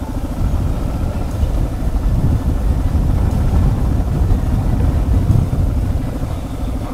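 Suzuki DR650's single-cylinder four-stroke engine running steadily, with a fast, even low pulse from its firing.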